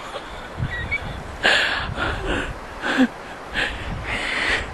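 A person's breathy, wheezing laughter: six or so short gasping bursts with no words.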